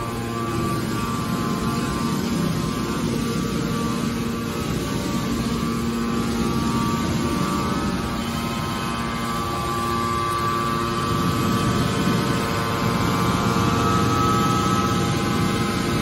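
Hydraulic car baler's power unit running, a steady machine hum and whine with several held tones, growing a little louder and higher in the second half.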